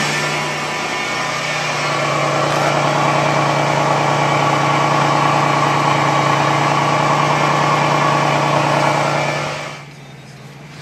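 Supercharged 3800 V6 of a Pontiac Grand Prix GTP, newly fitted with Speed Daddy headers, running steadily at idle as heard at the exhaust tip. Near the end the sound drops sharply to a quieter level, heard from inside the cabin.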